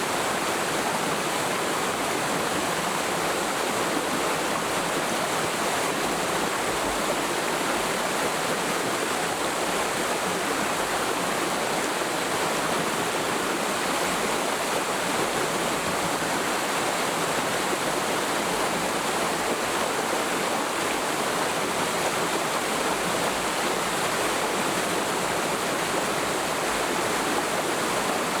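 Forest mountain stream flowing steadily over rocks, a constant rushing of water.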